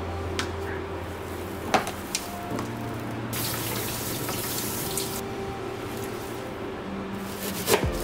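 A kitchen tap runs into a stainless steel sink for about two seconds midway through while pea shoots are rinsed under it. A few sharp knocks of things being handled come before it and near the end.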